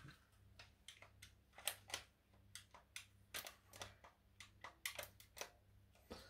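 Faint, irregular clicking of a toy RC car's remote control being pressed over and over, with no motor sound in reply: the car does not run, which the owner thinks is down to missing batteries.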